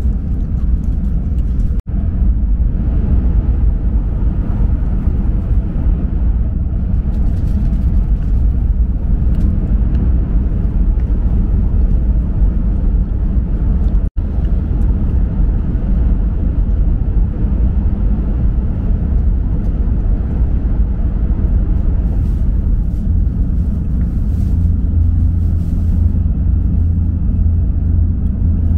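Steady low rumble inside the cabin of a moving Shinkansen bullet train. It cuts out abruptly for a split second twice, about two seconds in and again about fourteen seconds in, and grows slightly heavier near the end.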